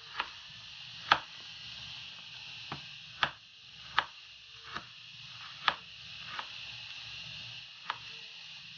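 Kitchen knife chopping frozen spinach on a wooden cutting board: about nine sharp knocks of the blade hitting the board, irregularly spaced.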